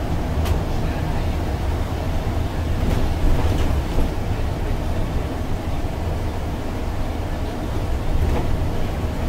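Steady low rumble of a MAN Lion's City articulated bus with a biogas engine driving at road speed, engine and tyre noise heard inside the passenger cabin. A few short clicks or rattles come through, one near the start, two in the middle and one near the end.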